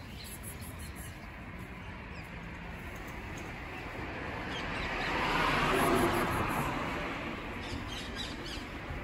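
A vehicle passing on a nearby road, its noise swelling and then fading over a few seconds around the middle, with small birds chirping faintly at the start and again near the end.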